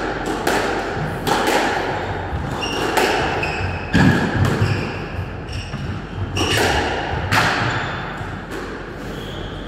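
Squash rally: sharp cracks of the ball struck by rackets and hitting the walls, about one a second, ringing in the enclosed court, with short shoe squeaks on the wooden floor. The strikes stop about three quarters of the way through.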